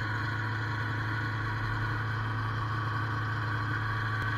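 Snowmobile engine idling steadily at an even pitch.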